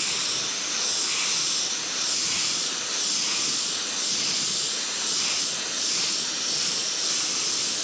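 Airbrush spraying paint: a continuous, steady hiss of air and paint from the nozzle.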